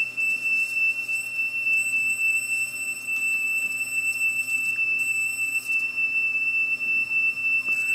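A 3 kHz test tone played back from a cassette on a Pioneer CT-F500 cassette deck, one steady whistle-like tone that cuts off near the end. It carries the wow and flutter of a thin, ill-fitting replacement drive belt, which the owner calls pretty pathetic.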